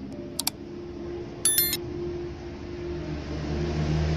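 Broadcast TV drama soundtrack from a Samsung CRT TV's speaker, in a gap between lines of dialogue: a click, then a short high beep about a second and a half in, then a low rumble that builds near the end. The set, repaired for no picture and no sound, is now putting out sound.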